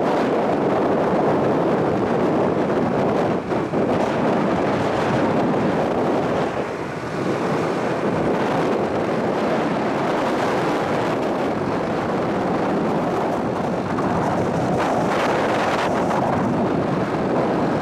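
Wind buffeting the microphone of a camera on a moving motorbike: a steady rush of noise that dips briefly twice, about three and a half seconds in and again around seven seconds.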